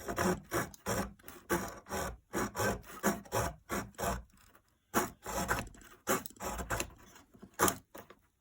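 Small folding wood-saw blade of a Victorinox Swisschamp pocket knife sawing through fresh, undried wood in short back-and-forth rasping strokes, about two a second, with a brief pause a little past halfway.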